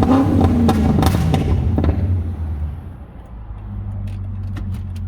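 Volvo XC90's 4.4-litre V8 falling back from a rev, its exhaust crackling and popping on the overrun, then settling to a steady idle with a few last pops near the end.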